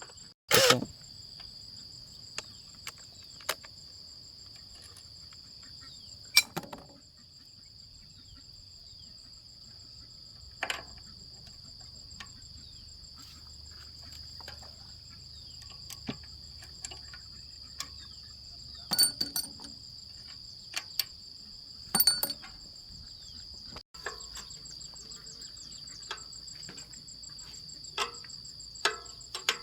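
Steady high-pitched chorus of insects with a fast pulsing trill, over scattered sharp clicks and knocks from hand tools working on the machine; the loudest knock comes about a second in, with clusters about two-thirds of the way through.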